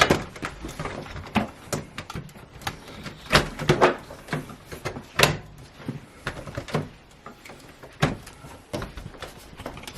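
Irregular knocks and clacks of plastic and metal as the window air conditioner's side panels and brackets are handled and fitted into place. The loudest come about three and a half, four, five and eight seconds in.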